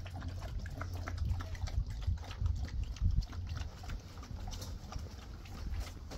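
Dogs eating at their bowls: quick, irregular wet smacking and chewing sounds, under a low rumble.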